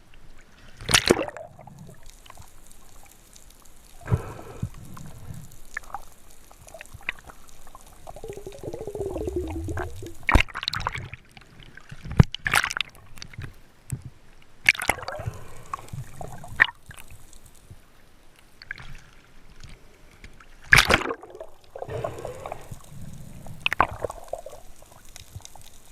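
Water sloshing and splashing in sharp, irregular bursts, about half a dozen loud ones spread through, over a background of trickling and dripping.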